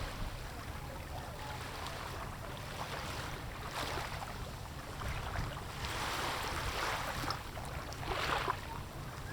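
Wind buffeting the microphone in a steady low rumble, with water splashing against a small boat's hull in a few short swishes.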